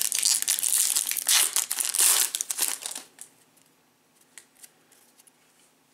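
Foil wrapper of a 2017 Topps baseball card pack being torn open and crinkled by hand for about three seconds. After that it goes nearly quiet, with a few light ticks as the cards are handled.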